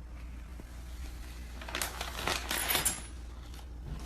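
Cat-treat packaging rattling and crinkling in a quick burst of clicks and clatter about two seconds in, over a steady low hum.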